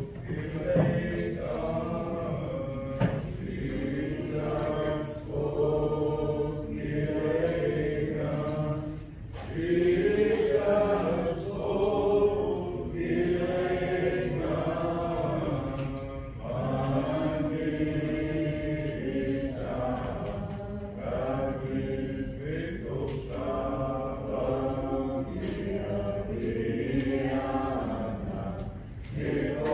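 Singing of a hymn in a church service, voices holding long notes, amplified through the sanctuary's sound system.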